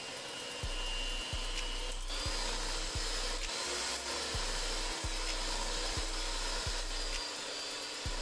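Softened butter being mixed in a bowl for cake batter: a steady mixing and scraping noise as the chunks are beaten smooth. A low, even thump comes about every two-thirds of a second.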